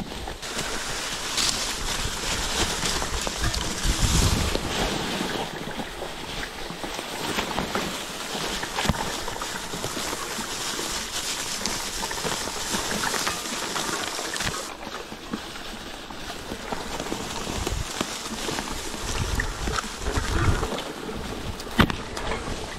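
Mountain bike tyres rolling and crunching over dry fallen leaves and twigs, with the bike rattling. Gusts of wind hit the microphone at times, and there is a sharp knock near the end.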